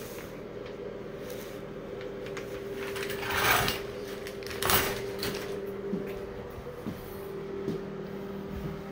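A steady low hum, like a small motor running, with two brief swishing rustles about three and a half and five seconds in.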